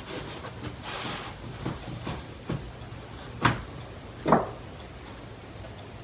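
Four short knocks, roughly a second apart, the last two the loudest, over a low steady hum.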